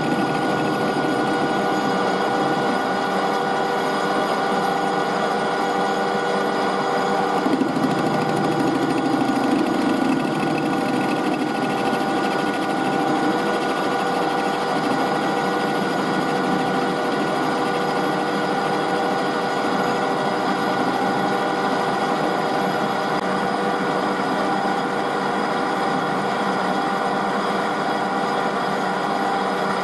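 Metal lathe running steadily while the cutting tool turns down a bar of cast scrap metal from an old casting riser, with a constant mechanical whine from the machine's drive.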